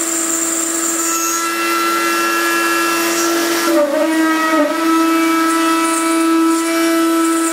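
CNC router spindle driving an end mill through aluminium plate under coolant spray: a steady, high-pitched whine with a hiss. The pitch sags and wavers briefly about four seconds in as the cutter takes more load, then settles again.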